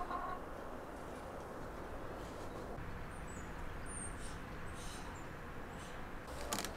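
Quiet outdoor village background: a low steady hum, with a few faint, high, short bird chirps about three and five seconds in.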